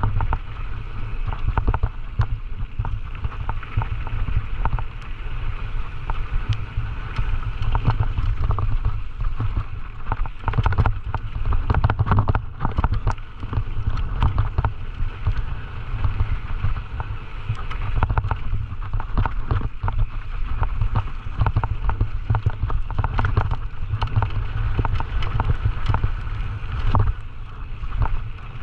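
Wind buffeting the microphone of a camera riding on a Scott Gambler 920 downhill mountain bike, with the bike rattling over rough trail and frequent sharp clicks and knocks from the chain and frame.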